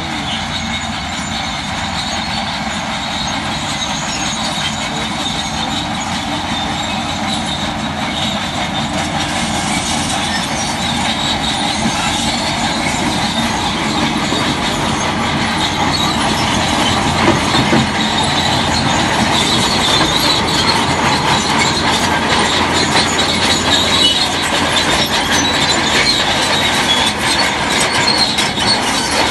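Crawler bulldozer working, its steel tracks clanking and squealing over the engine, growing steadily louder.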